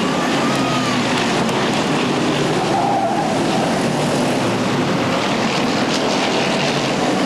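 Several stock car engines running together as the cars race around a short oval track: a steady, continuous engine noise whose pitch rises and falls a little as cars pass.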